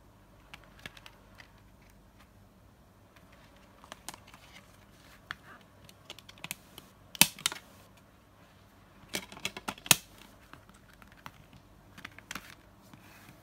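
DVD cases being handled: scattered clicks and taps of plastic and card. The loudest is a sharp click about seven seconds in, followed by a quick run of clicks near the ten-second mark.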